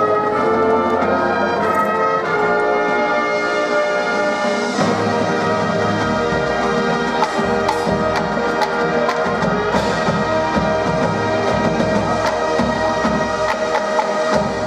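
Marching band brass and percussion playing a slow passage of sustained chords. About five seconds in it moves to one long held chord with scattered drum strokes, and the chord stops right at the end.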